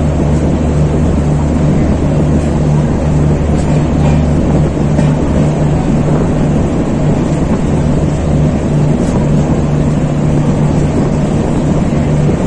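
Diesel generator of the train's power car running at a steady speed: a loud, even low drone with a constant hum and no wheel clatter.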